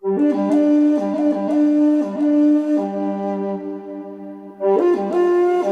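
Extra-large recorder playing a slow tune in a low register. A held note dies away a little past the middle before the tune picks up again.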